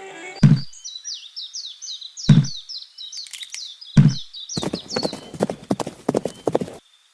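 Three heavy knocks about two seconds apart, with a run of high, quick falling chirps running through the first part, then a rapid clatter of clicks that stops sharply near the end.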